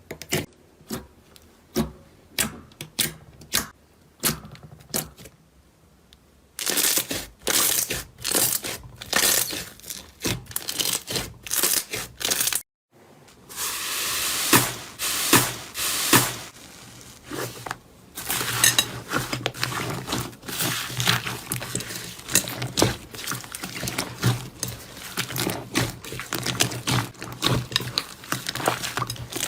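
Slime being pressed and squeezed by hand, giving sharp crackles and pops, sparse at first and then dense. It stops for a moment about thirteen seconds in, gives a few seconds of softer hissing squish, then dense crackling again.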